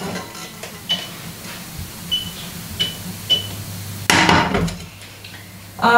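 Touch controls of a glass-ceramic hob being set: four short, high beeps over about three seconds. About four seconds in, a louder clatter of the frying pan on the glass cooktop.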